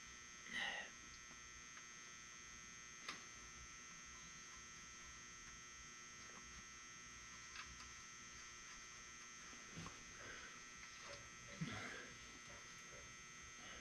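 Near silence: a steady electrical hum, with a few faint clicks and taps of a wrench on engine bolts.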